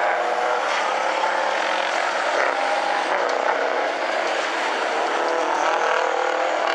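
Several big-rig semi-truck engines running hard together as the trucks race around a dirt oval, a continuous engine din whose pitches waver up and down.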